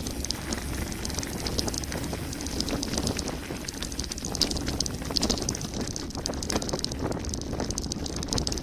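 Mountain bike descending a gravel road at speed: tyres crunching over loose stones, with a constant dense rattle from the bike, over a low rumble of wind on the microphone.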